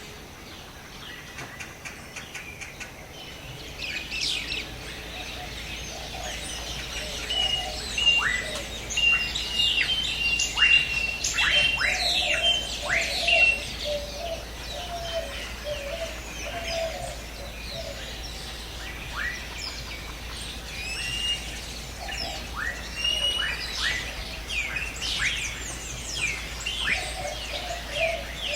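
Several birds calling and chirping together: many quick calls that fall sharply in pitch, runs of short clipped high notes, and a lower warbling call that comes and goes. The calling is busiest in the middle.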